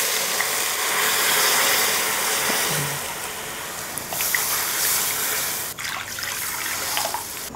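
Milk poured from a mug into hot ghee in an aluminium kadhai, splashing and sizzling as it hits the hot fat. The hiss is loudest at first and eases after a few seconds as the pan fills.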